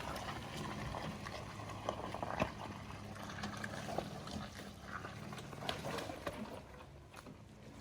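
Toyota Tacoma pickup engine running at low revs while the truck crawls a muddy trail, with scattered knocks and clicks. The engine hum fades near the end.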